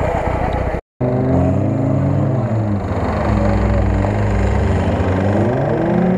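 A rough, noisy engine sound breaks off into a brief silence. Then an off-road 4x4's engine revs hard under load, its pitch sagging and then rising again near the end.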